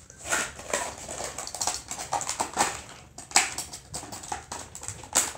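A dog moving about close to the microphone, making a string of short, irregular noises, with a louder one near the end.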